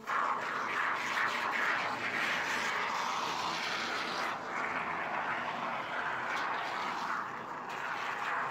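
Aerosol can of expanding polyurethane foam hissing steadily as foam is sprayed out through its straw applicator, with a short dip about four seconds in.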